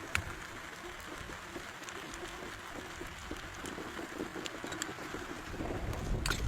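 Rain pattering on a tent: a steady hiss with scattered sharp drop ticks. Low wind rumble on the microphone builds again near the end.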